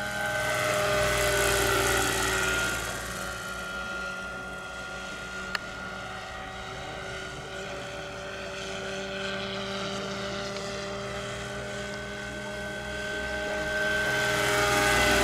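Electric-powered scale model helicopter of the Lockheed XH-51N, with a 2 m rotor, in flight. Its electric drive and rotor blades give a steady whine of several held tones, which grows louder as it passes closest about a second in and again near the end. A single brief click sounds about five and a half seconds in.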